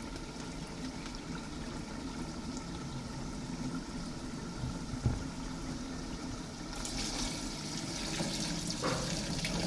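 Water poured in a stream into a metal pot of fried chicken and tomato masala, starting about seven seconds in. Before it only a steady low hum, with a single knock about five seconds in.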